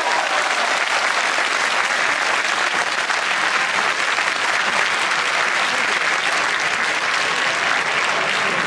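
Baseball crowd applauding steadily after a base hit.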